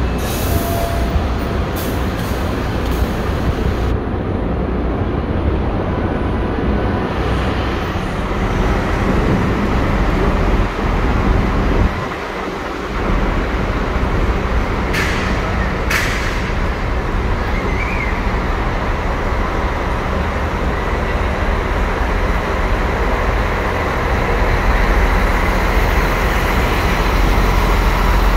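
Buses' diesel engines running and moving through a busy bus terminal as a steady low rumble, with two short hisses of air about halfway through.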